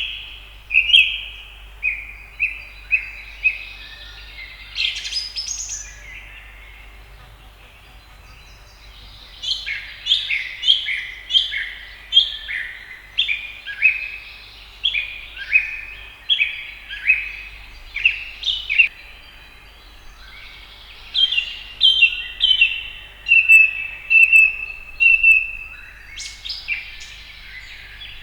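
House sparrows chirping: runs of short, repeated chirps, about two a second, broken by pauses of a few seconds.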